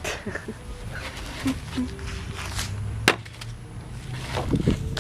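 Bean bags being thrown and landing with a few short, sharp thuds, the clearest right at the start and about three seconds in, over a steady low rumble.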